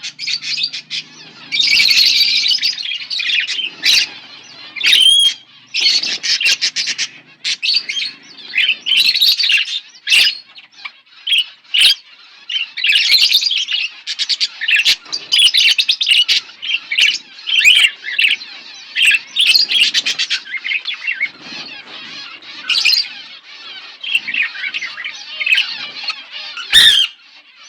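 Budgerigars chirping and chattering continuously, with a stream of quick warbles and squawks and a few sharp clicks.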